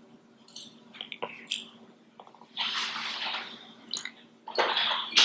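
Paintbrush tapping lightly on wet watercolour paper, a few faint taps, then two spells of soft swishing noise about a second long each.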